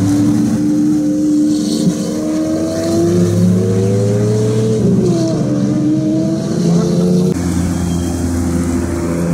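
A car engine running, its pitch climbing slowly, dipping briefly about five seconds in and rising again. Near the end the sound changes abruptly to a steadier engine note.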